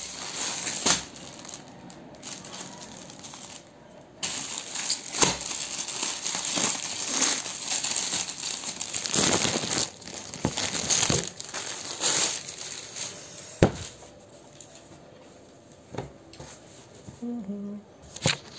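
Thin clear plastic packaging crinkling and rustling as a folded bedsheet is handled and pulled out of it, busiest from about four seconds in until about thirteen seconds, with scattered sharp clicks.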